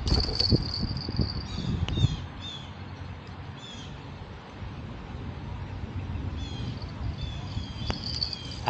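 Outdoor ambience of small birds calling with short falling chirps, in two clusters, over a steady high buzz. A low rumble fades after about two seconds, and there is a single sharp click near the end.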